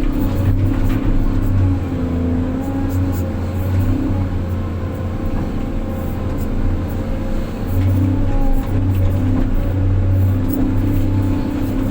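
Heavy diesel engine of an excavator running steadily, its note dipping and swelling every few seconds as the load on it changes.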